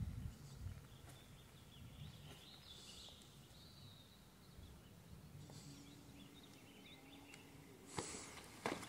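Quiet outdoor ambience with a few faint, distant bird chirps. Near the end there are two sharp clicks about half a second apart.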